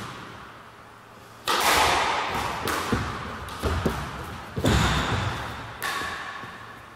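Squash ball being struck by rackets and hitting the court walls during a fast rally: about half a dozen sharp hits over roughly four seconds, each ringing in the hard-walled court.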